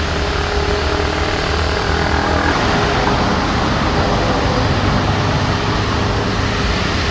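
Rolls-Royce Trent 500 jet engines of an Airbus A340-600 airliner running as it rolls along the runway, a loud, steady jet noise that grows fuller and brighter about two and a half seconds in.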